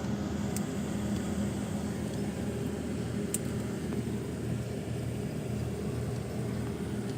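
Steady low mechanical hum of a running household appliance, with two faint clicks, one under a second in and one a little past three seconds.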